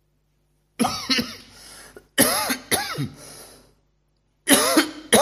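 A man coughing in three short fits about a second and a half apart, each of two or three coughs.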